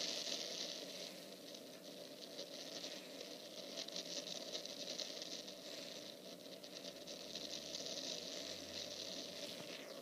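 Steady crackling rush of wind noise coming through a tablet's small speaker, with a fast flickering texture.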